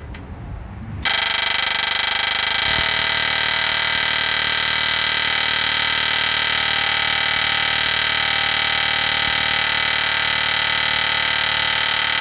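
Pneumatic air hammer with a punch bit hammering without a break on a steel frame rivet, trying to drive it out of an M35A2 truck frame. It starts about a second in as a loud, steady, rapid buzz. The rivet is not budging.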